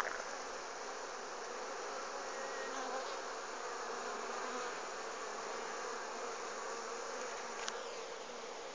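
A honeybee swarm buzzing steadily as it moves into a hive.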